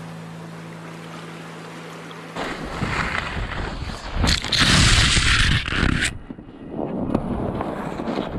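Background music fades out, then about two and a half seconds in, wind rushes over an action camera's microphone and skis scrape through snow as a skier falls. The loudest part is a hissing rush of snow and wind about halfway through, which then drops to a lower scraping noise.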